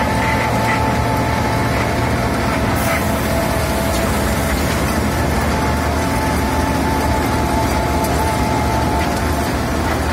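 Road milling machine at work: its engine runs steadily while the cutting drum grinds up the asphalt surface, with a steady whine over the rumble.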